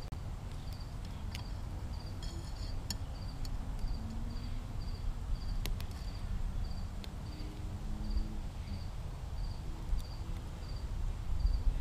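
A cricket chirping steadily, a short high chirp repeating about one and a half times a second, over a low rumble with a few faint clicks.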